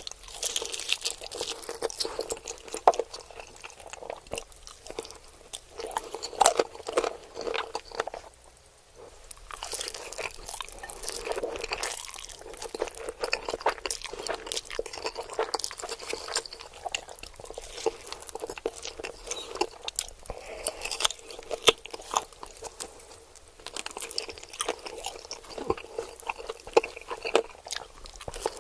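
Close-miked eating sounds: crunchy bites and steady chewing with crisp crackles, pausing briefly about eight seconds in.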